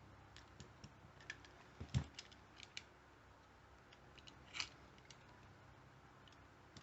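Hobby knife trimming excess heat-shrink tubing from a lockpick handle: a scatter of small light clicks and snicks, the loudest about two seconds in, with a few more and a short scrape about four and a half seconds in.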